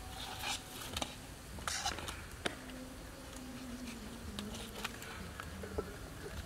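A low buzzing hum that wavers in pitch, with scattered short rubbing and clicking sounds as hands grip and turn a slippery eel.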